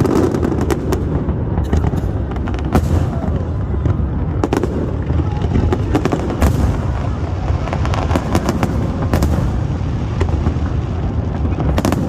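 Fireworks going off: repeated sharp bangs, some in quick clusters, over a steady low rumble.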